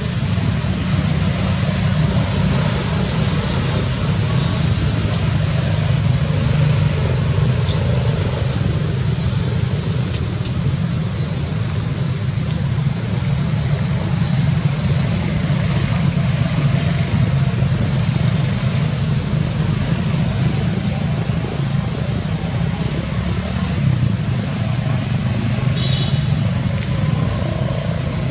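Steady, loud, low outdoor rumble with a short burst of high chirps near the end.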